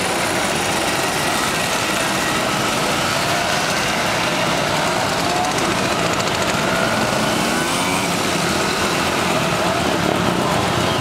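A group of two-stroke mopeds running together, with single mopeds pulling away one after another, their small engines buzzing and revving up in several rising whines over the steady din of the others.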